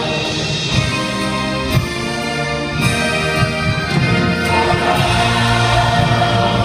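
Live gospel worship music: a choir and band performing with sustained chords and drum hits about once a second early on.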